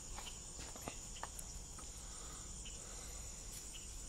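Faint, steady high-pitched trill of crickets, with a few soft crunches of dogs' paws on gravel.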